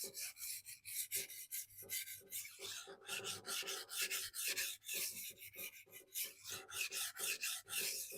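Steel knife blade, a sujihiki, stroked back and forth on a 400 grit sintered diamond sharpening stone: rapid, gritty scraping at about two to three strokes a second, working up a burr on the first side of the edge.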